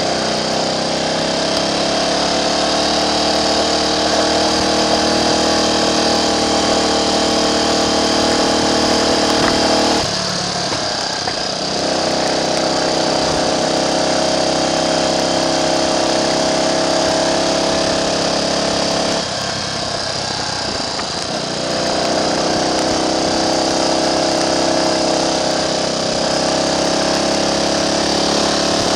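Triumph Trials Cub's single-cylinder four-stroke engine running at a steady pace on the road. Twice, about ten seconds in and again near twenty seconds, the engine note falls away for about two seconds before picking up again.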